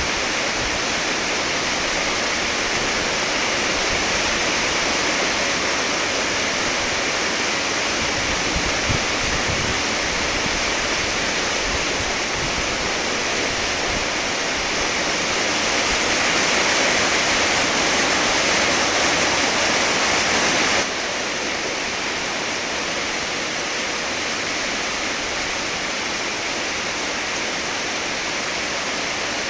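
Heavy rain falling steadily, a dense even hiss of drops; it drops slightly in level about two-thirds of the way through.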